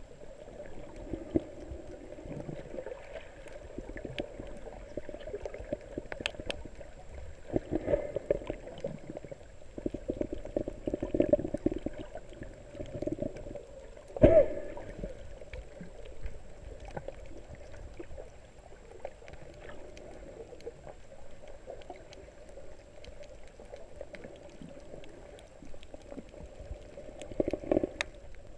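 Muffled underwater water noise, irregular gurgling and sloshing heard from below the surface, with one sharp knock about halfway through.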